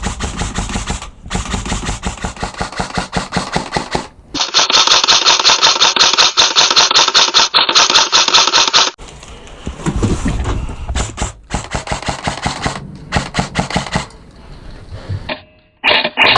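Airsoft electric guns firing on full-auto: long strings of rapid, even clicking shots that stop and start abruptly. The loudest, sharpest stretch runs from about four to nine seconds in.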